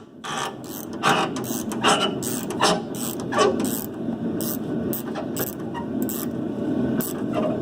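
Socket ratchet clicking in short, irregular strokes as it turns an upper shock-absorber mounting bolt.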